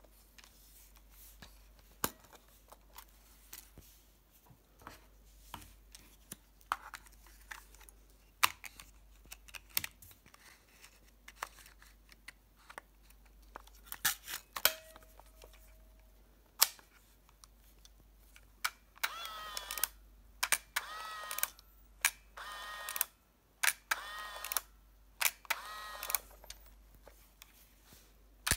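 Olympus Trip AF 50 compact 35mm camera being handled, with scattered sharp plastic clicks as its back cover is opened and closed. In the last third come a series of short whirs from its built-in motor, each under a second, repeated several times in quick succession.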